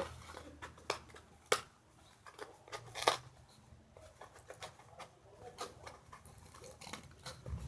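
Scattered small clicks, knocks and rustles of objects being handled at close range, with two sharper knocks about one and a half and three seconds in.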